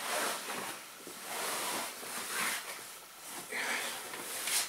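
Heavy woven Mexican rug swishing and rustling as it is shaken out and spread over a camp cot, in several swishes about a second apart.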